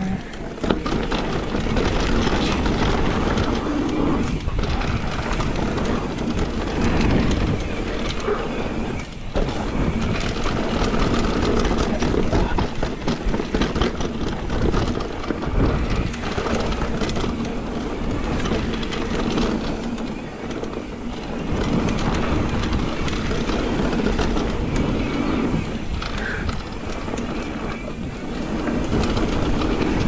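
Mountain bike riding down dirt singletrack: continuous tyre rolling noise with the bike clattering and rattling over bumps and roots.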